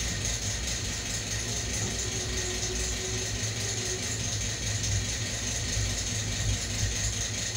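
Passenger train running through a station, heard from inside the coach. A steady low rumble of the wheels on the rails, with a busy mechanical rattle over it.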